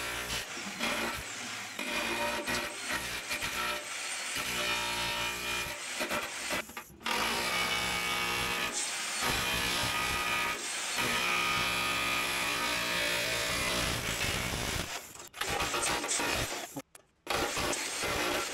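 Electric chisel hammer breaking up cured Chockfast epoxy chocking on a steel engine bed, hammering steadily. It stops briefly about seven seconds in and twice near the end.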